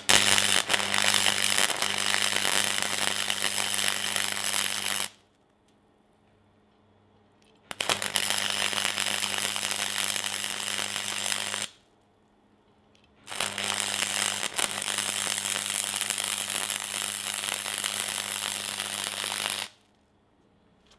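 Flux-core (gasless MIG) welding arc from a Parkside PFDS 120 A2 welder, crackling in three runs of about four to six seconds each with short pauses between. A steady low hum sounds under each run.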